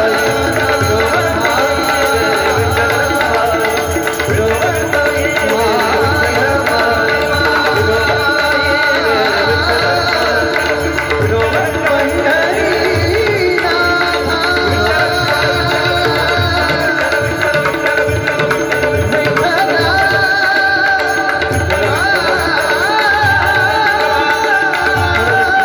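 Marathi Varkari bhajan music: a hand drum beats a steady rhythm under sustained melodic tones.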